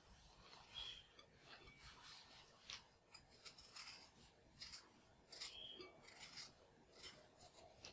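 Faint scraping of a vegetable peeler stripping the skin off a raw potato, in short strokes about two a second.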